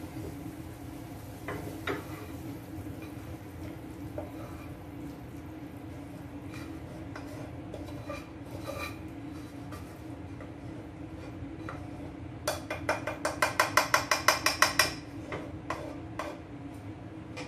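Metal spoon scraping cooked green chili sambal out of a cream-coloured pan into a bowl, with scattered scrapes and knocks. About twelve and a half seconds in comes a quick run of sharp taps, about six a second for some two and a half seconds, as the spoon knocks against the pan.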